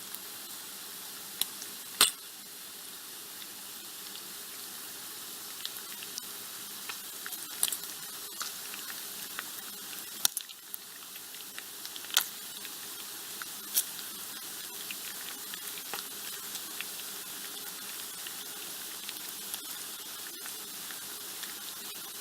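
Bacon frying in a pan: a steady sizzle with sharp crackling pops scattered through it, the loudest about two seconds in.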